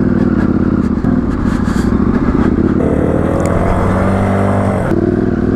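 Off-road motorcycle engines running while riding a dirt track. About three seconds in the sound switches to a Rieju Marathon 125 dirt bike whose 125 cc engine revs up with a rising pitch for about two seconds.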